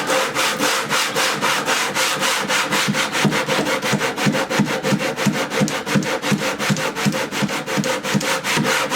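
Hand sanding of the wooden subwoofer box, brisk back-and-forth strokes of sandpaper on wood, about four to five a second, to level a brace with the side panels.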